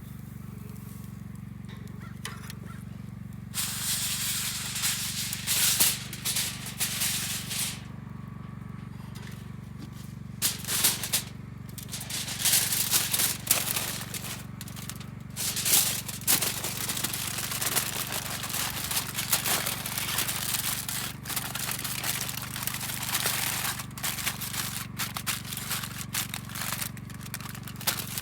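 Campfire crackling in irregular bursts of snaps and hiss, over a steady low hum.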